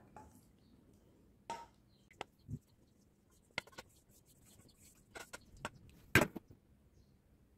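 Scattered light knocks and clicks of a pot and silicone spatula against a ceramic bowl as melted chocolate is poured and scraped out, the loudest knock about six seconds in.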